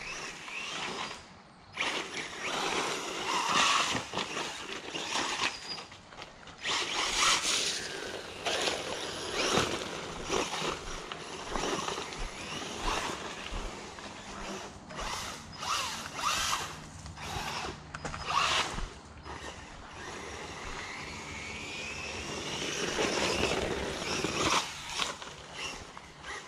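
Bezgar HM124 brushless RC car, running on a 3S LiPo, driven in bursts: its electric motor whines up and down as the throttle is worked, with tyre and gravel noise as it scrabbles over the dirt. There are rising and falling whines near the end.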